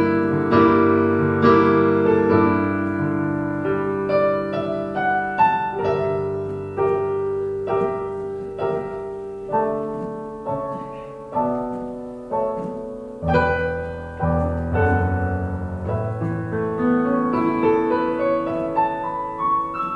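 Piano playing a slow instrumental piece: a melody of single notes over held chords, with a deep bass note coming in a little past the middle.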